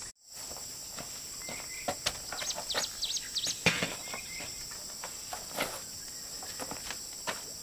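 Outdoor insect and bird ambience: a steady high insect drone like crickets, with birds chirping quick runs of curved notes and a couple of short whistled notes. Light sharp clicks and knocks are scattered through it.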